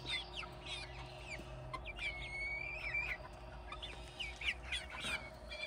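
Chickens calling softly: a string of short chirping clucks, with one longer, held note from about two to three seconds in.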